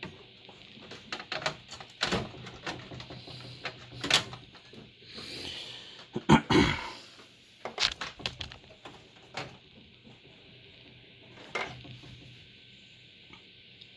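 Motherboard being offered up into a PC case: scattered clicks, knocks and rustling of the board and metal case being handled, loudest just after six seconds, then thinning to a few clicks.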